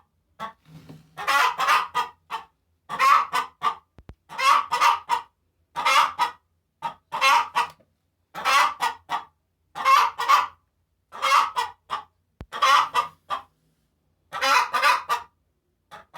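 Hen cackling its egg song after laying: a phrase of several quick clucks repeated about every one and a half seconds, a dozen times over.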